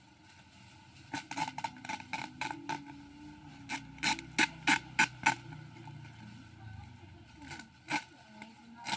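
Plastic parcel packaging being handled and opened: a run of crinkles and short sharp crackles, loudest in a quick cluster of about six about halfway through, with a few more near the end.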